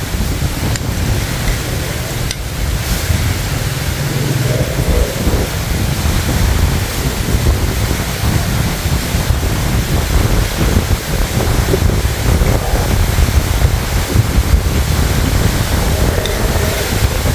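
Wind buffeting the microphone: a loud, steady rushing noise with a heavy low rumble.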